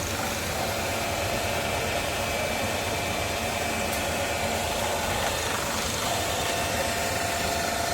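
CNC milling machine running steadily while machining an injection-mould block, a constant mechanical noise with a faint steady whine that shifts pitch slightly about half a second and six seconds in.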